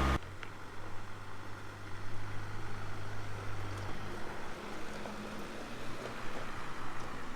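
An engine running steadily at a distance, a low even hum that shifts to a slightly higher pitch about four seconds in.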